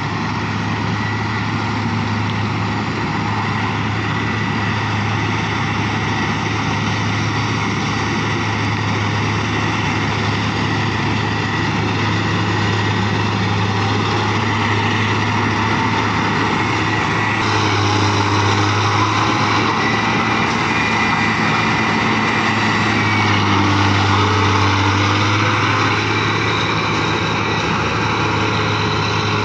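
New Holland 8060 combine harvester running steadily while harvesting rice, its engine and threshing machinery making a loud, continuous drone. About halfway through, the sound shifts and brightens, with some rising and falling pitch near the end.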